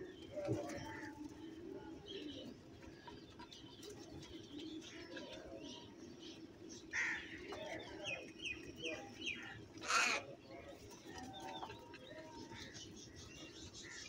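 House crows calling, with a few harsh caws in the middle, the loudest about ten seconds in, over a steady low hum.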